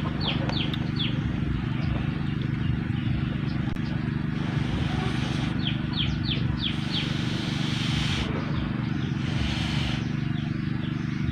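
Instant noodles being slurped in three short noisy rushes, and a bird calling a quick run of falling chirps twice, once right at the start and again about six seconds in, all over a steady low hum.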